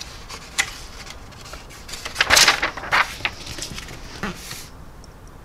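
Paper pages of a model-kit instruction booklet being turned and pressed flat by hand: a few papery rustles and swishes, the loudest about two seconds in.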